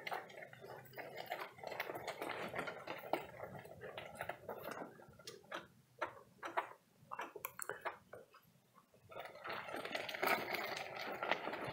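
Footsteps crunching on loose gravel at a walking pace, fading out for a moment about eight seconds in.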